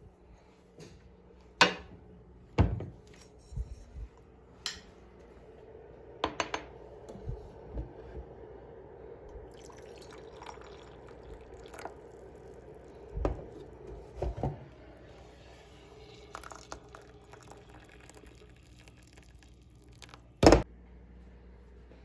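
Scattered clinks and knocks of dishes and glassware being handled, with faint liquid sounds between them.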